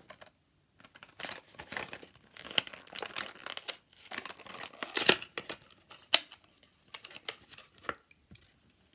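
The cardboard-and-plastic blister pack of a Hot Wheels die-cast car is torn and crinkled open by hand. Several sharp cracks stand out in the rustling, the loudest about five and six seconds in.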